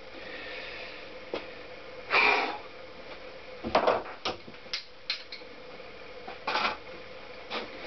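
Workshop handling noises: scattered clicks and knocks, with two short scuffs about two seconds in and again near six and a half seconds, over a faint steady hum.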